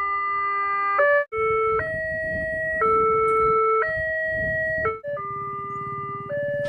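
Electronic warning alarm of a railway level crossing sounding steady tones that step between a few pitches about once a second. The pattern breaks off and shifts abruptly a few times.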